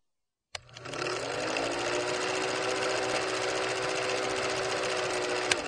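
Film projector running: a fast, even mechanical clatter with a motor hum that rises in pitch as it comes up to speed and then holds steady. It starts with a click, and a sharp click comes near the end.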